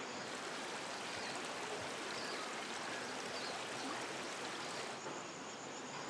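Steady, even rush of running creek water. About five seconds in it gives way to a thin, high, steady insect trill.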